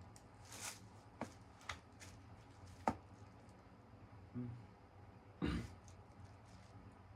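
A Casablanca Victorian ceiling fan running in reverse, its motor a faint steady low hum. Over the hum come a handful of sharp, irregular clicks and a dull thump about five and a half seconds in.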